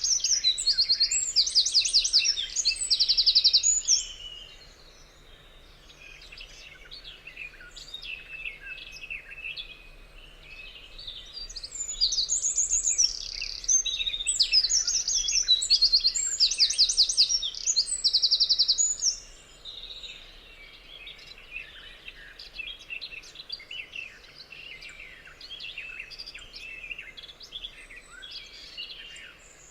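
Forest birds singing in a chorus. A loud nearby songster gives fast trilled, rattling phrases at the start and again from about 12 to 19 seconds, with many fainter chirps and whistles throughout.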